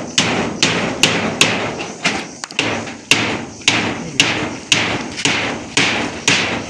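Steady hammering: about two hammer blows a second, each with a short ringing decay.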